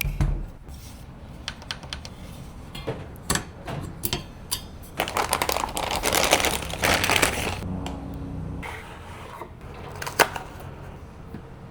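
Plastic and metal PC parts being handled and fitted together, giving scattered sharp clicks and taps. About five seconds in, a denser stretch of rustling and clattering lasts two to three seconds.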